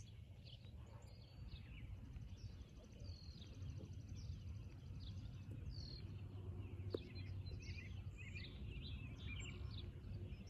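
Songbirds chirping and trilling, many short calls overlapping, over a low steady rumble. A single brief tap sounds about seven seconds in.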